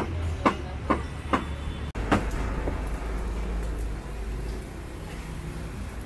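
Street ambience at a roadside grill stall: a low engine hum with a run of sharp knocks, about two a second, in the first two seconds. After that comes a steadier, noisier hum.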